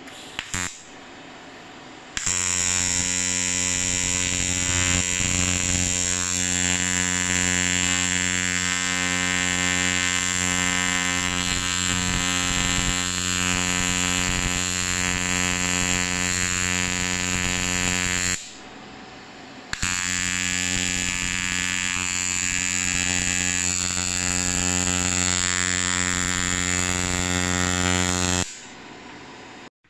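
AC TIG welding arc on an aluminium bike frame, buzzing steadily as he lays the welds. The arc strikes about two seconds in, breaks off for a second or so past the middle, then runs again and stops shortly before the end.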